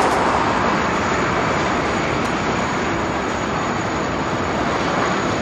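A passing train: steady rolling noise of the cars on the rails.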